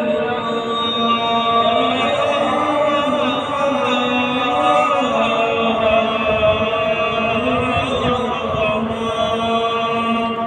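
Adhan, the Islamic call to prayer, chanted by a muezzin. A single voice holds one long phrase, its pitch winding slowly up and down in drawn-out ornaments.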